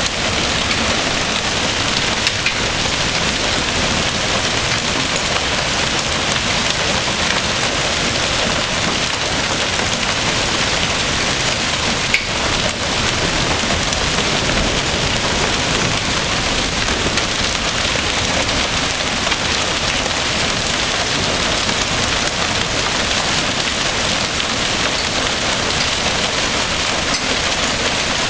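Hail and rain coming down hard: a dense, steady patter of stones and drops on surfaces, with a few louder single hits.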